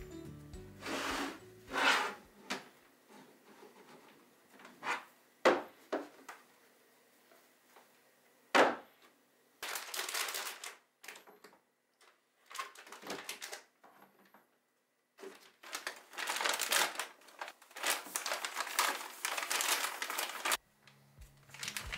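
Plastic snack packets and a refill detergent pouch crinkling and rustling as they are packed by hand into a plastic storage basket. Sharp clicks and knocks of plastic containers against the basket come in the first half, with longer stretches of crinkling later.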